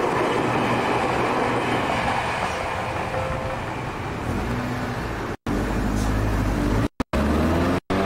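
Seibu Haijima Line electric commuter train passing over a level crossing, its wheels rumbling on the rails and fading after about four seconds. A road vehicle's engine running low follows, and the sound cuts out to silence briefly a few times near the end.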